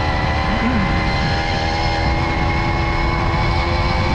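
Tomos Silver Bullet moped's 49cc two-stroke engine running at a steady cruising speed, with wind rumble on the microphone.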